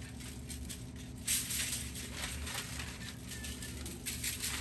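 Gloved hands working a rack of ribs on aluminium foil: soft rustling and crinkling of the foil, with a sharper rustle about a second in, over a faint steady hum.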